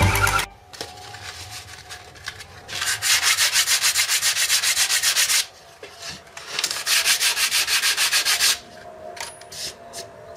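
Wood being hand-sanded with sandpaper: two runs of quick back-and-forth scraping strokes, about seven a second, with a pause and a few light clicks between them.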